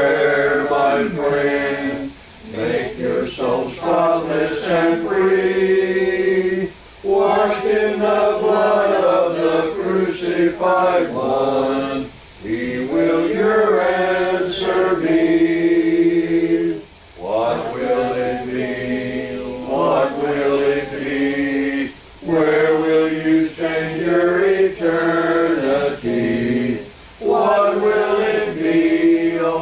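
Congregation singing a hymn unaccompanied, a cappella in the Church of Christ manner, in long held lines with a short break about every five seconds.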